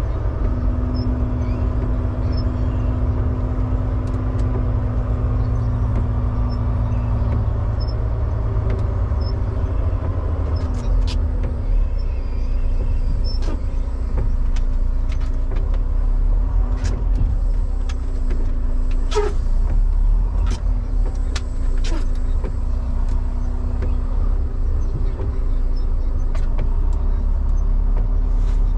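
Semi-truck diesel engine running and road noise heard from inside the cab while driving, a steady low hum. A held tone drops out about seven seconds in, and scattered clicks and knocks come in the middle stretch.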